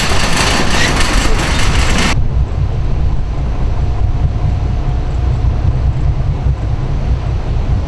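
Wind buffeting the microphone: a loud, low rumble with little else above it. For about the first two seconds a fuller, louder noise covering all pitches is heard, then it cuts off abruptly.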